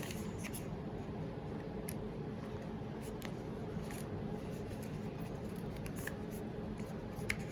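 Faint, scattered clicks of a SHASHIBO magnetic shape-shifting cube's segments being folded and snapping together on their rare-earth magnets, over a steady low background hum.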